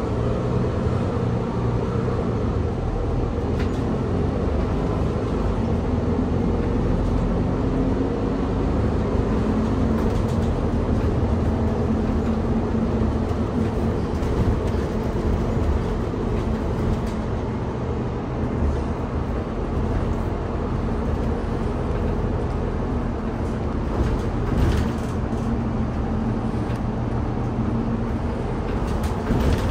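Interior running noise of a Mercedes-Benz Citaro O530G articulated bus under way: a steady low drone from the bus's diesel engine and drivetrain, mixed with tyre and road noise. There is a brief knock a few seconds before the end.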